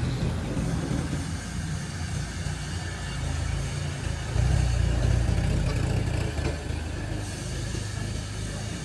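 Kubota compact tractor's diesel engine running as the tractor drives off, getting louder for a few seconds from about halfway through.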